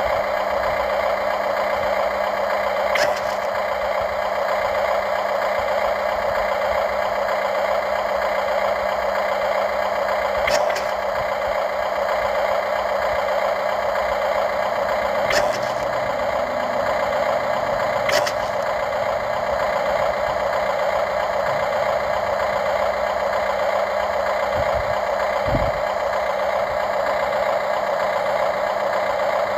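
Radio-controlled model excavator's motor running with a steady whine, broken by four sharp clicks and, near the end, a couple of low thumps.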